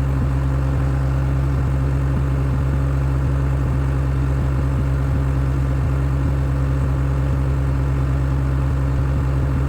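Skid steer engine running steadily at a constant speed, with no revving.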